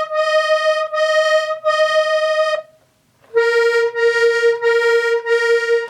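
Hohner Corona III diatonic button accordion playing two single held notes one after the other, the second lower. Each note keeps the same pitch through several brief dips in loudness as the bellows change direction, showing Gleichton buttons that give the same tone on push and pull.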